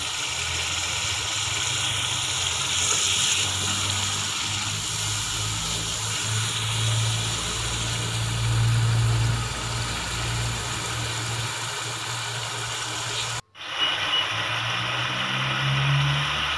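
Spiced tomato masala bubbling as it simmers in a pot, a fine steady hiss of bubbles over a steady low hum. The sound breaks off for an instant about thirteen seconds in.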